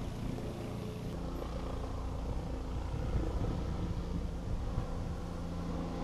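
A motor engine running steadily: a continuous low rumble with a constant hum.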